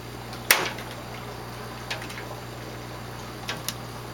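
A sharp knock about half a second in, then a few light clicks, as plastic aquarium equipment is handled, over a steady low hum.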